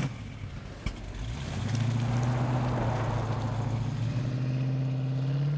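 An old Chevrolet Camaro's engine pulls away with a sharp bang about a second in, then runs steadily with its pitch slowly rising. The car is belching thick exhaust smoke; the owner says an old first car is supposed to be like that.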